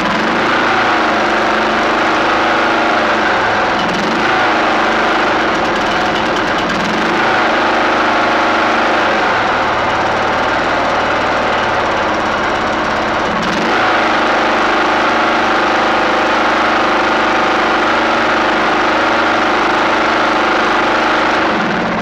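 Briggs & Stratton Intek engine of a Toro Timecutter zero-turn mower running steadily on its first run after the carburetor's float needle and inlet seat were replaced, its speed shifting a couple of times.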